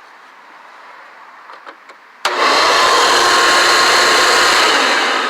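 Hoover Caddy Vac upright vacuum cleaner with a 12-amp motor switched on with a click about two seconds in, then running loud and steady with a high whine. Near the end it is switched off and starts to wind down.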